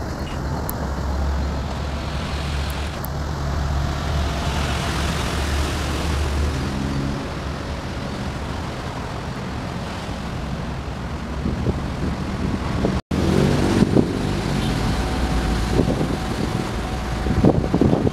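Steady outdoor rumble of traffic beside an electric railway line. After an abrupt cut about 13 seconds in, a rougher rumble with scattered knocks grows louder toward the end.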